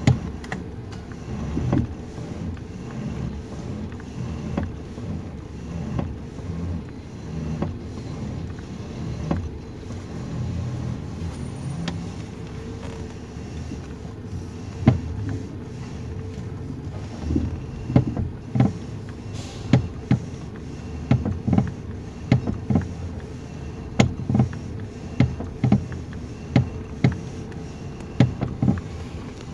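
Steering column of a 2019 Toyota Rush clicking and knocking as the wheel is turned from lock to lock, over the steady hum of the idling engine; the clicks come thick and fast in the second half. The kletek-kletek noise is traced to loose steering bolts and bushings that need lubricating.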